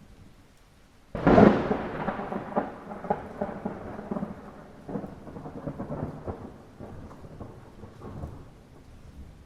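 A thunderclap over light rain: a sudden sharp crack about a second in, then a crackling rumble that rolls on and fades away over about seven seconds.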